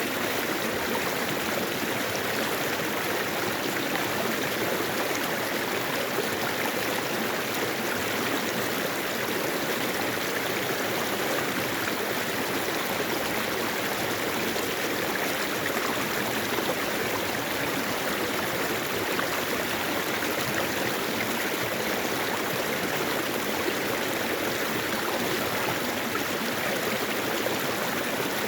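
Mountain stream water running steadily over rocks.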